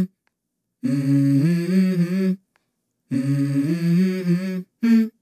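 Wordless hummed vocal music with held notes that step up and down in pitch. It comes in two phrases of about a second and a half each, cut apart by abrupt silences, then a brief snatch near the end.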